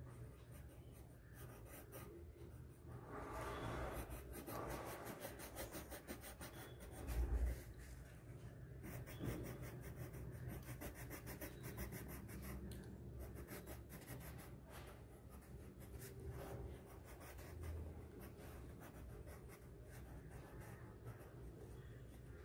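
Yellow coloured pencil scratching on paper in quick back-and-forth strokes as an area is shaded in. A single dull low thump about seven seconds in.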